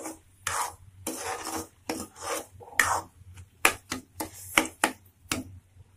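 Metal spoon stirring and scraping grated carrot and sugar around a kadai, about ten uneven scraping strokes, so that the sugar dissolves into the halwa.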